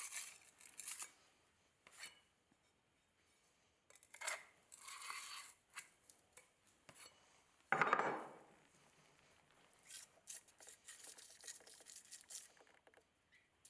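Intermittent scratching and scraping of a small metal tool dragged along the groove of a chainsaw bar, clearing out packed wood and dirt debris. A louder, duller rub comes about eight seconds in.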